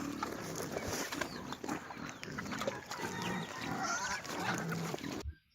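Several farm animals calling at once, their overlapping calls rising and falling in pitch, then cut off abruptly near the end.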